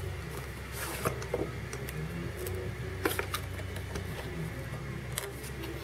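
3D printer running, its stepper motors humming in steady tones that shift in pitch every so often. A few light clicks and rustles come from a cardboard box being opened.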